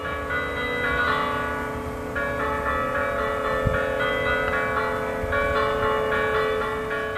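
Church bells pealing: several bells struck in turn, their tones ringing on over one another.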